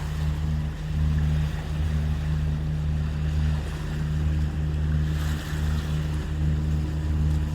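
Lagoon 46 catamaran motoring in a calm with its diesel engines running steadily, a low even drone with a slight pulse, over the wash of water along the hulls.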